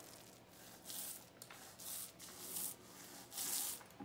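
Paint roller being rolled over the side of a bee box, wet paint hissing in a series of rubbing strokes, about one a second.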